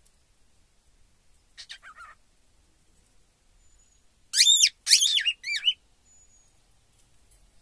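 Cockatiel vocalizing: a short, quiet call about two seconds in, then a louder run of four squeaky, whistle-like syllables around five seconds in, the bird's mimicry of the word 'cicibaba'.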